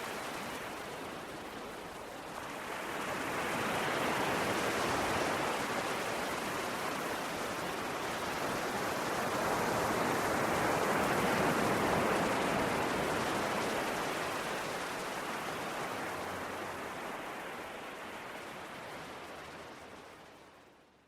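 Sea waves washing ashore: a steady rush of surf that swells twice, about three and about ten seconds in, and fades away near the end.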